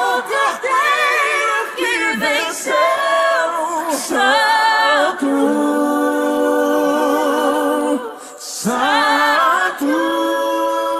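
A cappella singing: layered voices sing wordless runs with vibrato, then hold long sustained chords, with a brief dip and swell about eight seconds in.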